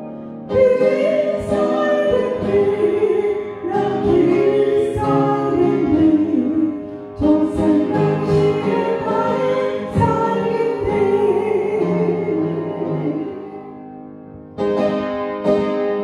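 A woman singing a Korean hymn into a microphone with upright piano accompaniment. Near the end her voice stops and the piano plays on alone.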